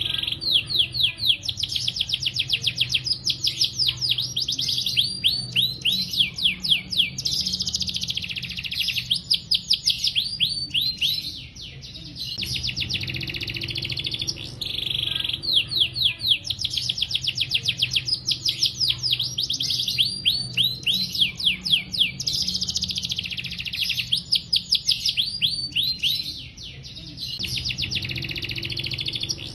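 Domestic canary singing a long, continuous song of rapid trills, each note repeated many times a second before switching to the next, with two brief pauses.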